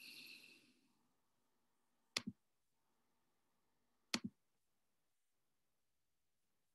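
Near silence with two sharp computer-mouse clicks about two seconds apart, each a quick double snap, after a short soft rustle at the very start.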